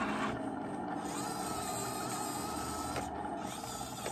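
Small electric turret-traverse motor and gearbox of a 1:16 RC M5A1 Stuart tank whining as the turret rotates. The thin whine starts about a second in and stops about a second before the end, over a steady low hum.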